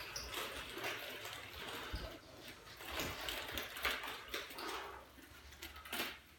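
Nunchaku swishing through the air in a run of quick swings, with a few soft thumps.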